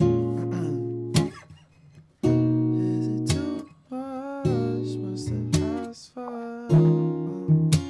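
Guitar strummed slowly, one chord about every second, each left to ring before the next.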